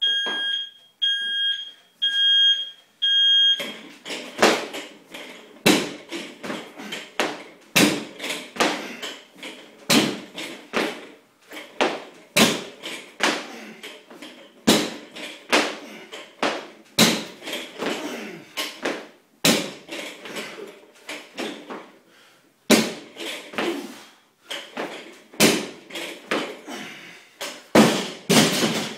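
Gym interval timer beeping four times about a second apart as a countdown. Then a barbell loaded with bumper plates (185 lb) being power-cleaned, landing on the floor with a loud impact about every two and a half seconds, with plates and bar clanking and rattling between the reps.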